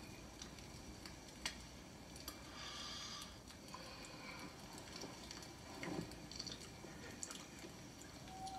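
Quiet film sound: a sleeping man's soft breathing, with a few faint clicks and small wet noises.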